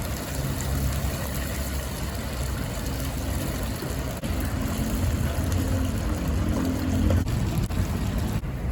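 A small engine running steadily, with a continuous low drone.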